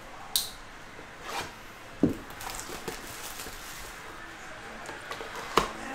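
Hands opening a Panini Prizm Choice trading-card box and pulling out its cellophane-wrapped pack: cardboard and plastic wrap rustling, with a few sharp snaps, the loudest about two seconds in and near the end.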